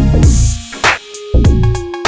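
Background electronic music: a drum-machine beat over heavy bass, with the bass and kick dropping out for a moment about two-thirds of the way through.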